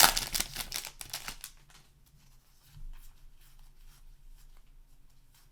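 Foil booster pack wrapper crinkling as it is torn open, loud for the first second and a half, followed by faint rustling of the cards being handled.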